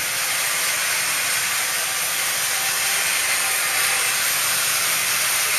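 A steady, loud, high hiss that does not change.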